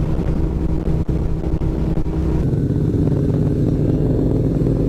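Motorcycle engines running at road speed, heard from a helmet camera with wind rushing over it. The wind noise drops away about halfway through while the engine note carries on steadily.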